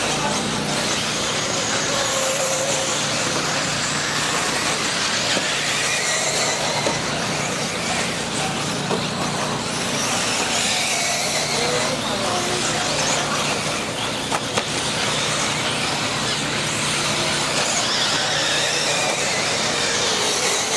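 A pack of electric off-road RC buggies racing together: a steady, dense high whine from their electric motors and drivetrains, with individual whines swelling and fading as cars pass.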